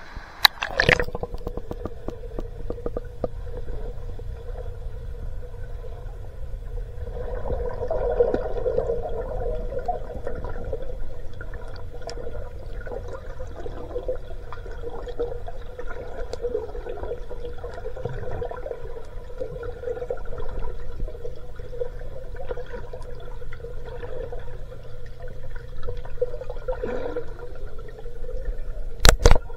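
Water sloshing and gurgling, uneven and continuing throughout, with a sharp knock about half a second in and two more close together near the end.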